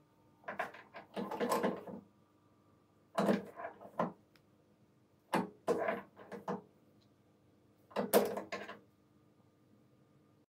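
A hexagonal steel collet block being set into the jaws of a milling-machine vise, clamped and taken out again: four bunches of metal clinks and knocks over a faint steady hum.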